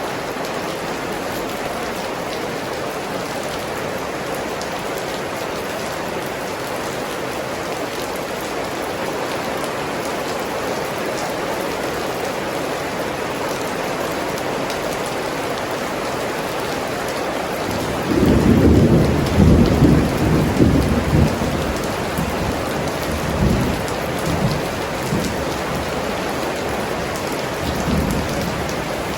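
Steady rain falling. About two-thirds of the way through, a low rolling rumble of thunder comes in suddenly, swells for a few seconds and fades away, with two fainter rumbles after it.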